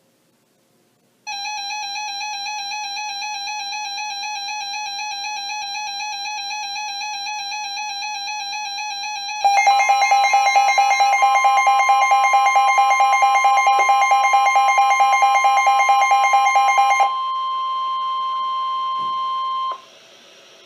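A weather radio receiver's warbling alarm begins about a second in and gets louder about nine seconds in. A steady NOAA Weather Radio 1050 Hz warning alert tone joins it a couple of seconds later. The alarm stops a few seconds before the end, and the steady tone runs on alone for a few seconds before cutting off, announcing a river flood warning.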